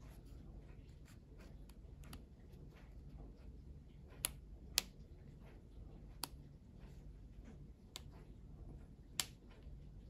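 Sharp clicks of the VGN V87 Pro keyboard's three-position mode slide switch (wireless, wired, Bluetooth) being thumbed between positions: five separate clicks spread over the second half, with faint handling ticks before them.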